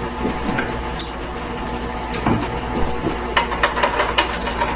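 Stand mixer motor running steadily while it mixes bread dough, with a short run of light clattering clicks about three and a half seconds in.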